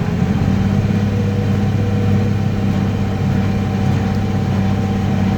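Tractor engine running steadily at raised revs with the PTO engaged to drive a square hay baler.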